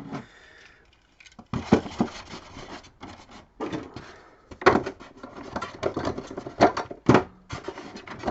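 Old Scalextric plastic track pieces and barriers being handled and moved about, giving irregular clicks, knocks and rattles.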